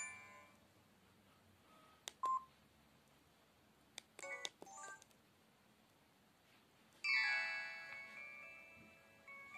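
Samsung SGH-E250 mobile phone's built-in speaker: a chiming tune dies away, a few short keypad beeps sound as the menu is scrolled, and about seven seconds in a new chiming melody starts, the tune of one of the phone's message templates.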